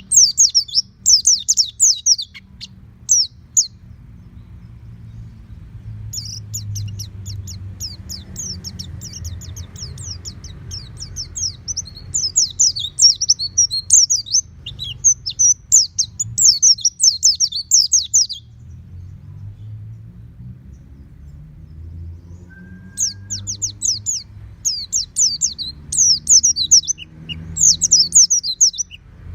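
White-eye (pleci) song: fast, high chirping warbles in three long bouts with pauses of a few seconds between them, over a low steady hum.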